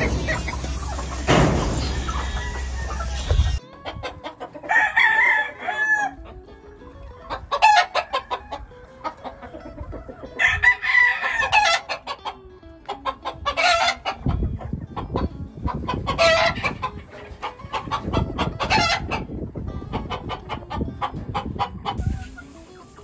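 Gamefowl roosters crowing over and over, about six drawn-out crows a couple of seconds apart, with hens clucking between them. A loud steady rushing noise fills the first few seconds before the crowing starts.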